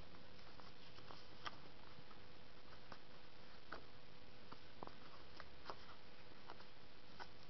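Light, irregular taps and clicks from a smartphone being handled, about a dozen spread over several seconds, over a faint steady hum.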